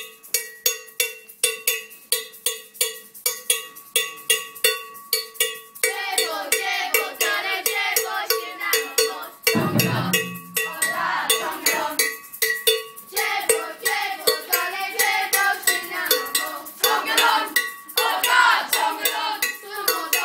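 A class of djembe drums played together in a steady, even beat, each stroke carrying a bell-like ringing tone. About six seconds in, the pupils' voices join, singing over the drumming.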